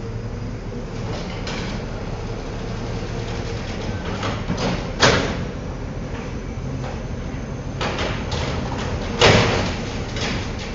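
Amrep automated side-loader garbage truck running while its hydraulic arm lifts a trash cart, dumps it into the hopper and lowers it. It rattles and clatters, with a loud bang about halfway through and a louder one near the end.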